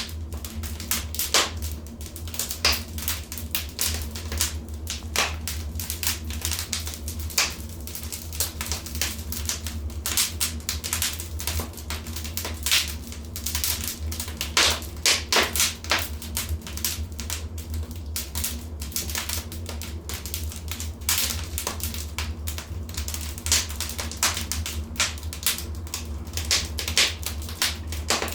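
Wood fire crackling in a fireplace: irregular sharp pops and snaps, in thicker clusters at times, over a steady low rumble of the flames.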